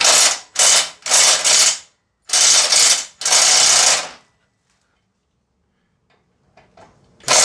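A bolt holding a wood chipper's knife being driven tight with a hand tool, in about seven short loud runs over the first four seconds, then it stops.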